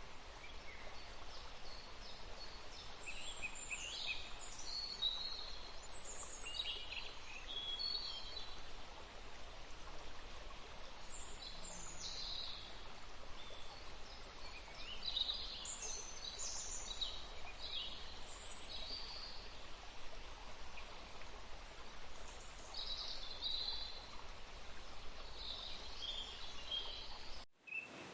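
Several small birds chirping and calling in short, scattered phrases over a steady background hiss.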